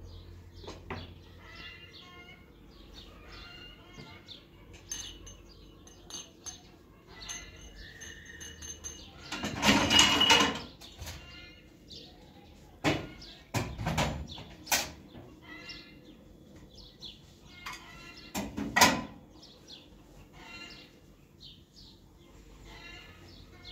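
Small birds chirping on and off, with a few loud knocks and bursts of handling noise: a longer burst a little before the middle, then several sharp knocks.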